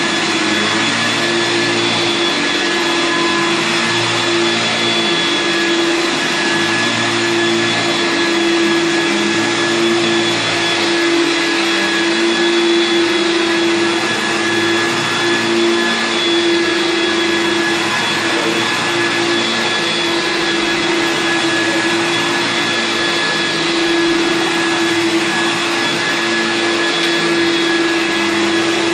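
Hoover Turbopower 2 upright vacuum cleaner running steadily while vacuuming carpet: a constant rushing motor sound with a steady hum and a thin high whine on top.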